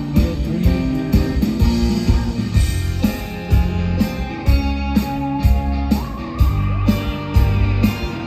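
Live rock band playing an instrumental passage through a stage PA: electric guitars and bass over a steady drum beat. A high held guitar note comes in about six seconds in.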